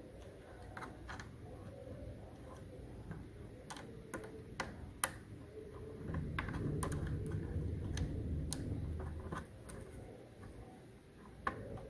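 Scattered small clicks and taps of a screwdriver and plastic parts as the screw holding a replacement laptop speaker is driven in. A low hum joins for a few seconds past the middle.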